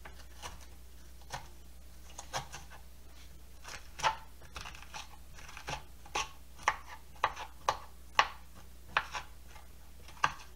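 Seeds and stringy pulp being scraped out of a halved squash with a knife and fingers: a dozen or so short, irregular scraping strokes, with bits of pulp dropping onto a plastic cutting board.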